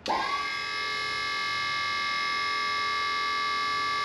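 Electric hydraulic pump of a dump-bed hoist switching on, its motor spinning up with a quick rising whine, then running with a steady high whine as it raises the unattached lift arm.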